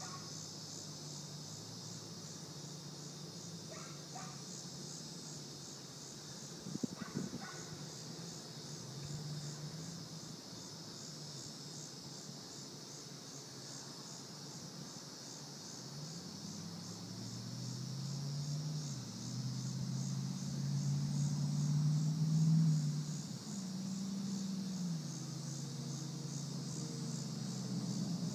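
Crickets chirping steadily, with the V8 exhaust of a 2005 Chevy Avalanche running through dumped dual Cherry Bomb Extreme mufflers low underneath. About halfway through, the exhaust note rises and falls in pitch several times and grows louder. There is a brief clatter about seven seconds in.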